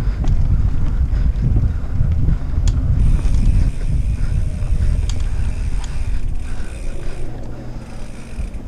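Mountain bike riding over a dirt singletrack, heard from a bike-mounted microphone: a loud low rumble of wind and trail vibration, with the bike's parts rattling and a few sharp clicks.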